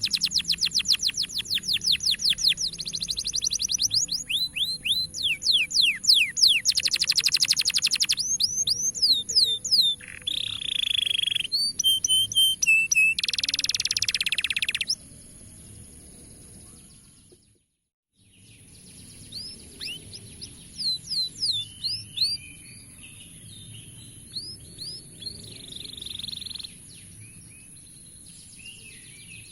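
Domestic canary song: loud, fast trills and rolls of rapidly repeated chirps. About halfway through it turns quieter, breaks off briefly, then goes on in softer, scattered chirps and trills over a faint steady high hiss.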